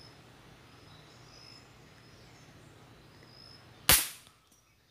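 A single shot from a Daisy 880 multi-pump air rifle charged with seven pumps, a sharp crack about four seconds in that is the loudest thing heard and fades within half a second. Before it, a faint outdoor background with short high chirps.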